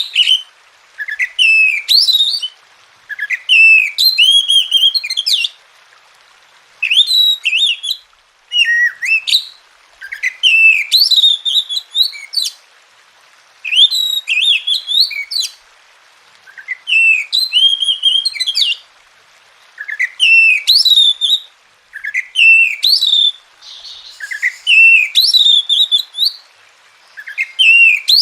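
Oriental magpie-robin (kacer) singing in short repeated phrases about every two seconds, each phrase a quick run of rising notes.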